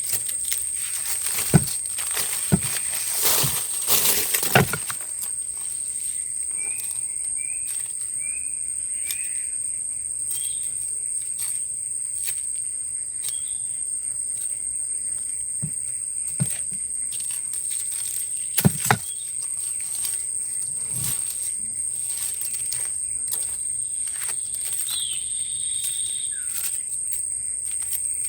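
Steady high-pitched insect drone of forest ambience, with a few short bird chirps. Scattered sharp knocks and rustles come mostly in the first five seconds and again about 19 seconds in.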